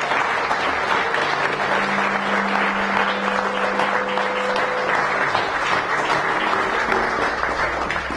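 Audience applauding at the close of a lecture, a dense, steady clapping.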